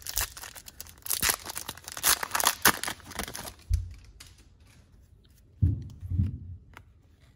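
Foil wrapper of an Upper Deck hockey card pack being torn open and crinkled, with a dense crackling for about three and a half seconds, then a few soft low bumps.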